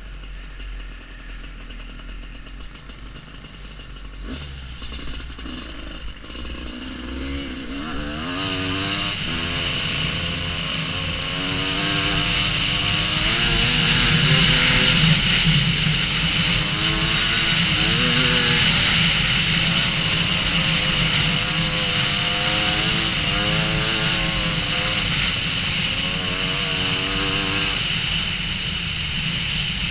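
Husqvarna WR250 two-stroke enduro motorcycle being ridden, its engine rising and falling in pitch again and again as the throttle is worked. It is quieter at first and grows louder about eight seconds in.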